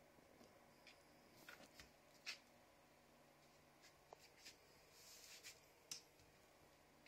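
Near silence: quiet room tone with a scattering of faint, short rustles and scrapes.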